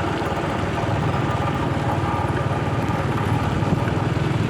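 A vehicle's engine running steadily at low speed while driving, with a brief dip in engine note shortly after the start.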